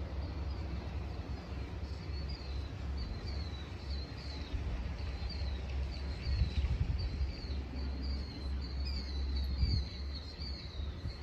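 Killdeer calling over and over in flight, short high notes that each fall in pitch, coming in quick succession. A steady low rumble of wind on the microphone runs underneath, with a couple of heavier gusts.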